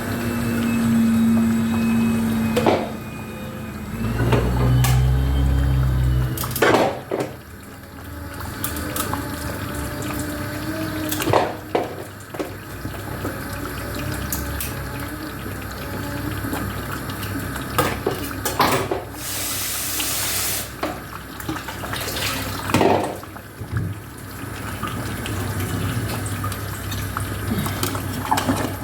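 Water running from a kitchen tap and splashing in a sink, with scattered knocks and clatter of pots and utensils.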